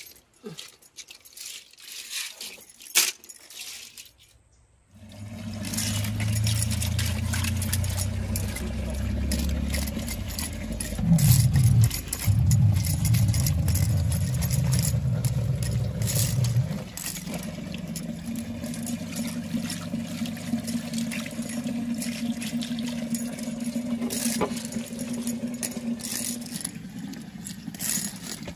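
Small freshwater snails rubbed by hand against a concrete floor, their shells clicking and grinding together on the rough surface. Sparse clicks in the first few seconds give way, about five seconds in, to continuous scraping dense with clicks.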